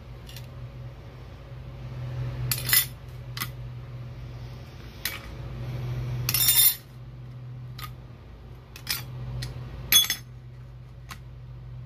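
Steel clutch plates and friction discs from a 2006 Honda Odyssey automatic transmission's clutch pack clink against each other as they are handled and set down. There is a scattering of short metal clinks, with the longest cluster about midway, over a steady low hum.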